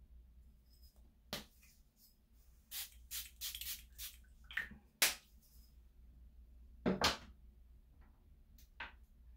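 A fine-mist pump spray bottle of rosewater facial toner spritzed several times in quick succession, then a sharp click about five seconds in and a louder double knock about two seconds later from handling.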